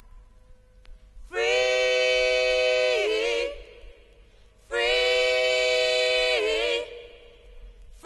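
Unaccompanied singing voice holding two long notes, each about two seconds, wavering into vibrato as it ends, with a pause between them.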